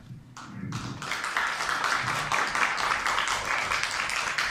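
An audience applauding: many hands clapping, swelling up about a second in and then holding steady.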